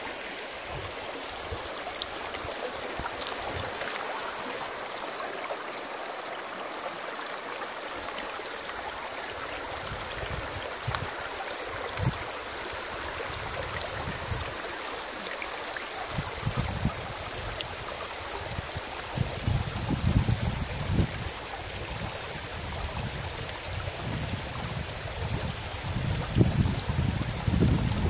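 Shallow stream running over stones with a steady rushing and rippling of water. From a little past halfway, wind gusts buffet the microphone with low rumbles that grow stronger near the end.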